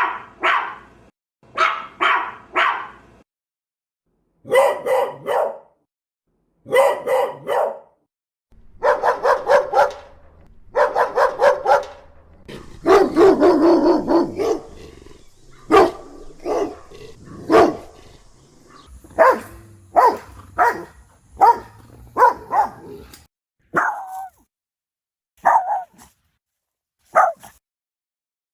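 Dogs of different breeds barking in turn, one short clip after another: a Maltese, a Beagle, a stray dog, a German Shepherd, a Rottweiler and a Boston Terrier. The barking comes in groups of quick barks with brief gaps, thickest in the middle, and thins to a few single barks near the end.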